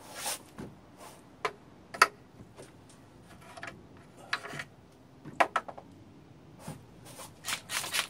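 Irregular metallic clicks and clinks of a hand tool working on the exhaust manifold nuts of a 2.5-litre engine, with one sharp clink about two seconds in and a quick run of clicks near the end.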